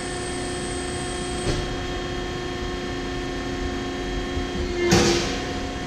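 Baykal 220-ton CNC hydraulic press brake running idle, a steady hum with several steady tones. One short clunk about five seconds in.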